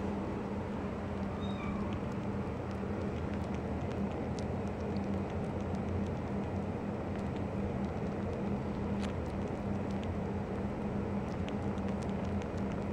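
A three-week-old kitten nosing and suckling in a dog's fur, with small scattered clicks and a faint high mew about a second and a half in, over a steady low hum.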